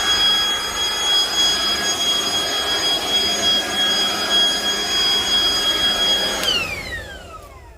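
Ryobi hybrid leaf blower's electric motor and fan running at full speed, a steady high whine over rushing air. About six and a half seconds in it is switched off and the whine falls in pitch as the fan spins down.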